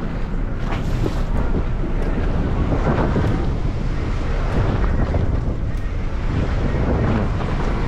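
Wind buffeting the microphone over the wash of choppy waves against a drifting fishing boat's hull: a steady rumbling rush with no clear tone.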